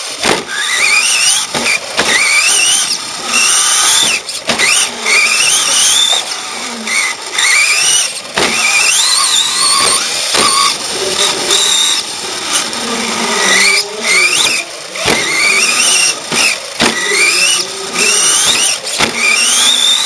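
A radio-controlled truck's motor whines up in pitch again and again as the throttle is opened on each straight. Sharp knocks come in between as the chassis hits bumps and lands.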